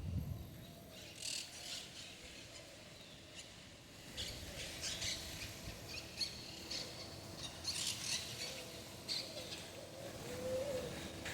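Small birds chirping in repeated short bursts of high calls, with a lower wavering call near the end. A brief low thump sounds at the very start.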